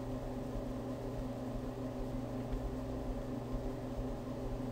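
Steady low electrical hum with a faint even hiss: the background noise of the recording, with no other events.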